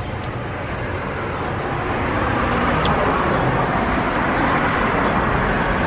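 Road traffic going by on the street: a steady rush of tyres and engines that builds over the first couple of seconds and then holds.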